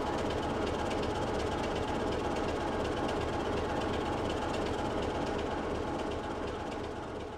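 BR Class 25 diesel locomotive's Sulzer six-cylinder engine idling steadily while the locomotive stands in the station, beginning to fade near the end.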